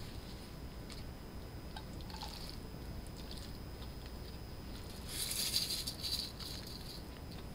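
Sauced jjolmyeon noodles squishing softly as they are tipped from a glass mixing bowl into a serving bowl, with a few faint clicks. About five seconds in, a plastic shaker is shaken over the noodles in a brief rustling burst, the loudest sound here.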